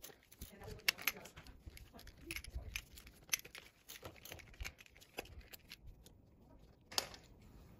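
Faint, scattered clicks and light metal taps of a hex tool and hands working at a bicycle crank-arm bolt, dying away for a moment about six seconds in.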